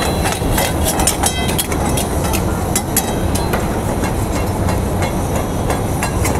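Chicken karahi cooking on high gas burners: a steady roar of flame under the woks, with long metal ladles scraping and clinking against the steel karahi pans many times over.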